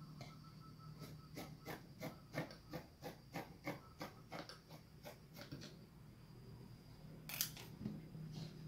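Fabric scissors snipping through batik cloth in a quick, even run of about four cuts a second for several seconds, then a single louder snip near the end.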